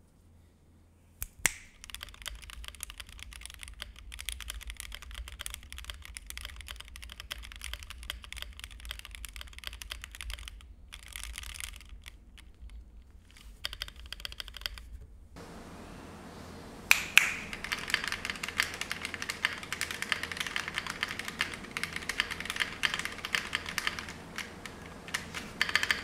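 Typing on a modded Monsgeek M1 aluminium mechanical keyboard: a steady run of key clacks with a few louder strikes and a couple of short pauses. Recorded close through a USB microphone at first, then from about fifteen seconds in through the camera's mic, with more room hiss under the keys.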